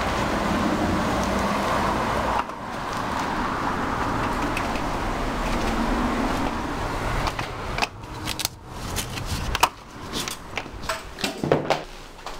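Steady outdoor street noise with road traffic. From about halfway on, this gives way to a string of sharp clicks and knocks.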